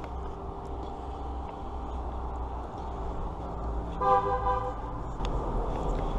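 A vehicle horn honks once, briefly, about four seconds in, over a steady low rumble of traffic.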